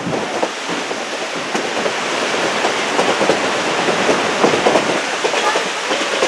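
Narrow-gauge railroad cars rolling along the track, a steady running noise with wheels clicking over the rails, heard from an open-sided car.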